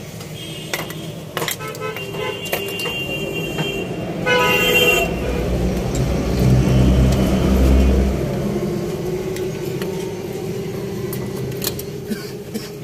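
Road traffic: vehicle horns toot several times in the first five seconds, then a loud low engine rumble swells and fades from about six to eight seconds in.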